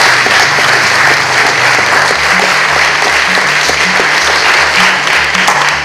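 Audience applauding, steady and dense, to encourage the groom. Background music with a low bass line comes in about two seconds in.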